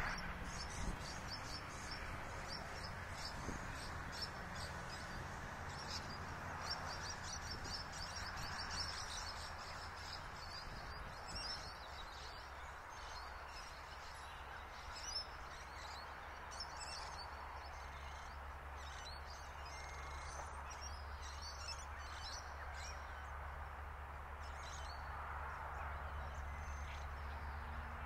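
Birds chirping and calling in short repeated notes, over a steady low rumble.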